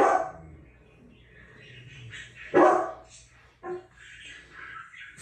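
Dogs barking on a TV: a loud bark at the start, another about two and a half seconds in, and a shorter, quieter one about a second after that.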